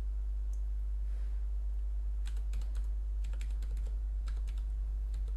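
Computer keyboard keys tapped in a quick run of typing about two seconds in, with a few more keystrokes a second or so later. A steady low electrical hum runs underneath.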